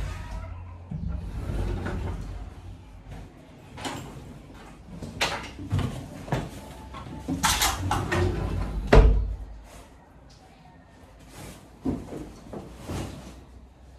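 A sliding wardrobe door being opened and shut and belongings knocked about: a string of knocks and clatters with a heavy thump about nine seconds in. The noise is made on purpose, to wake a sleeper.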